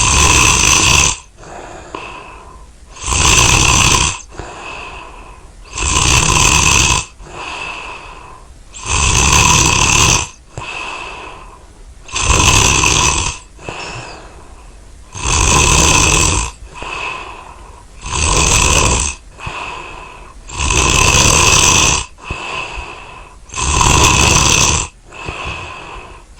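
A person snoring in a steady rhythm: about nine loud snores on the in-breath, each roughly a second long and about three seconds apart, with quieter breathing out between them.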